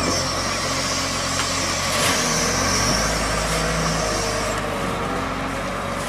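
Volvo wheel loader's diesel engine running steadily under load while it raises and tips its bucket, with a high thin whine over it that stops about two-thirds of the way through.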